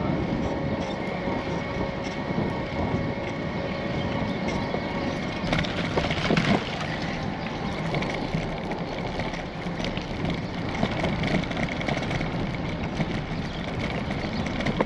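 Steady rumbling noise of riding a bicycle: wind on the microphone and tyre noise on the path, with scattered clicks and a faint steady tone over the first five seconds.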